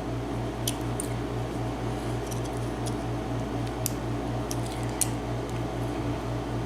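Faint metal clicks and ticks, about eight in all, of a tool working at the retaining clip on the back of an Ezcurra 5-pin cylinder lock, over a steady low hum that pulses evenly several times a second.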